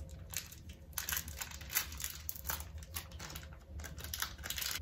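A small foil candy wrapper crinkling as it is torn open by hand, a run of irregular crackles.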